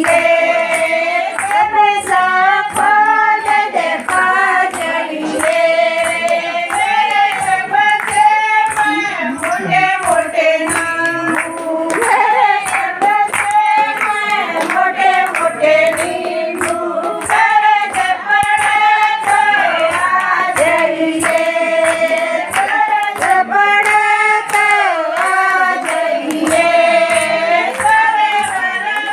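A group of women singing a Haryanvi folk song together, unaccompanied, with hand claps keeping a steady beat.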